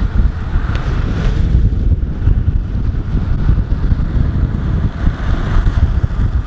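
Heavy wind buffeting on the microphone of a camera moving at downhill speed, over the rough rumble of longboard wheels rolling on asphalt.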